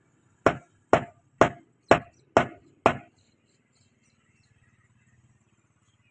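Meat cleaver chopping beef on a wooden chopping block: six sharp, even strokes about two a second, stopping about three seconds in.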